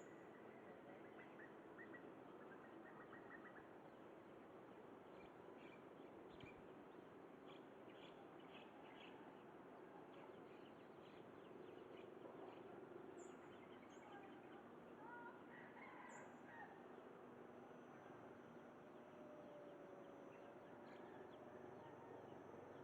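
Faint bird calls and chirps scattered over a quiet outdoor background.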